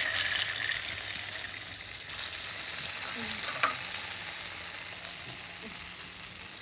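Slices of rolled arbi (colocasia) leaf pakora dropped into hot oil in a kadai, sizzling loudly as they hit and then easing into a steady deep-frying hiss. A single sharp click about three and a half seconds in.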